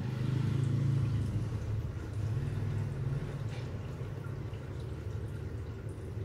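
Aquarium aeration: air bubbling steadily up through the tank water over a steady low hum.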